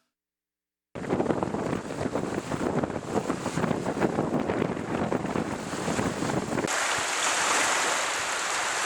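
Strong wind buffeting a camera microphone in gusty bursts, starting abruptly after a second of silence. Near the end it cuts to a steadier rushing hiss, like water spray and waves.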